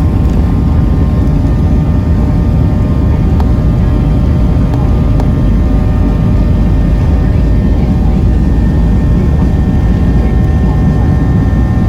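Airliner engines running loud and steady during the takeoff: a deep, even rumble with several steady whining tones above it.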